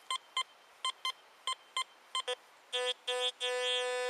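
Fisher metal detector's audio signal over a buried coin: a run of short high beeps as the coil sweeps the target, then about three seconds in two shorter, lower beeps and a long steady lower tone. The target is a second coin inches from a just-dug Lincoln cent, reading a little deeper.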